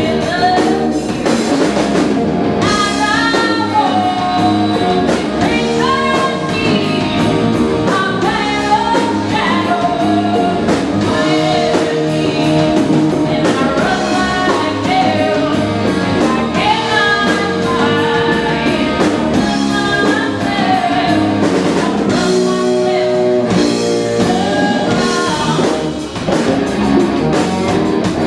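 Live rock band: a woman singing lead over electric guitar and a drum kit.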